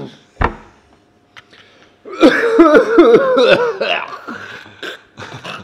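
A man coughing hard in a loud fit of about two seconds, starting about two seconds in and trailing off into smaller coughs, after a single thump near the start.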